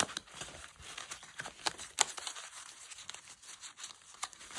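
Paper and cardboard sulfanilamide packets and cloth rustling and crinkling as they are handled, with scattered sharp ticks and taps.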